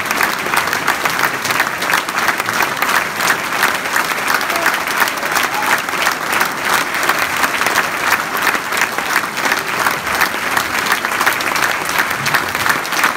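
Large audience applauding, dense steady clapping.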